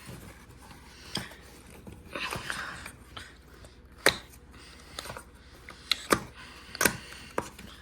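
Hands opening a puzzle's packaging. There is a soft rustle about two seconds in, then a series of sharp clicks and taps; the loudest come about four and six seconds in.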